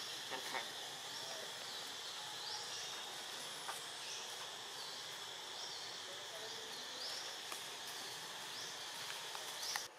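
Steady high insect drone with short high chirps repeating about once or twice a second above it, and a few faint clicks. The sound drops away abruptly near the end.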